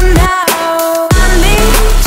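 Background electronic music: held synth chords over a deep bass, with two deep notes swooping down in pitch, about a quarter second and a second in.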